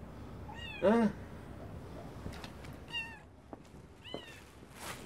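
Domestic cats meowing: several short, high-pitched mews spaced about a second apart, and one louder, lower meow about a second in.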